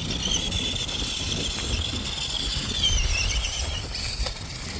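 Electric motor of a toy radio-controlled monster truck whining at a high pitch, the pitch wavering and shifting as the throttle changes. Low wind rumble on the microphone underneath.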